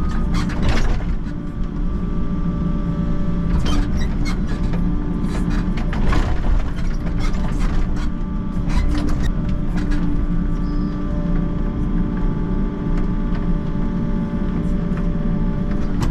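A Volvo mini excavator's diesel engine running steadily under hydraulic load as the boom and bucket move, with scattered knocks and clatters from the machine and bucket working the soil.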